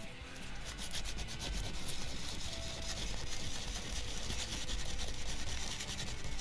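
Coarse-grit sandpaper rubbed by hand in quick, steady strokes over the crown of an aluminum motorcycle piston, scrubbing deposits off the top to clean it.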